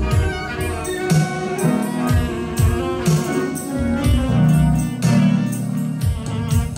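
Live band playing a song, with drums and cymbals keeping a steady beat over bass notes.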